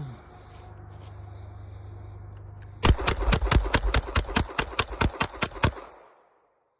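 Taurus TX9 9mm compact pistol fired rapidly in a speed run: a fast string of about sixteen shots, roughly five a second, starting about three seconds in.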